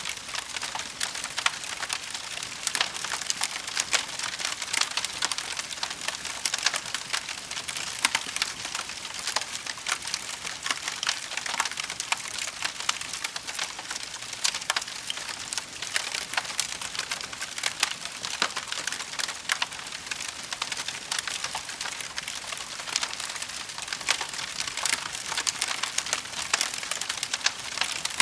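Wood fire crackling in a fireplace: a continuous run of small crackles and snaps, with a few louder pops.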